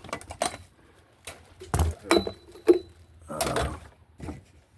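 A few scattered knocks, clinks and rustles from equipment being handled and moved about, spaced roughly a second apart.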